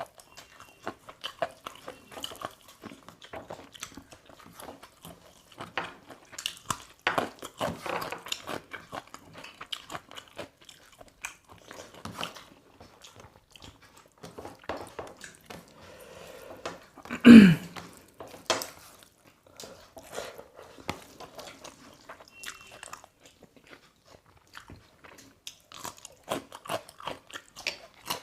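Close-up eating sounds: people chewing and biting into chicken, with irregular crunches, lip smacks and small clicks. A single louder thump comes about two-thirds of the way through.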